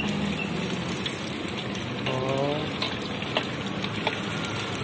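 Pempek fish cakes deep-frying in a wok of hot oil: a steady sizzle, with a few light clicks and a short voice about two seconds in.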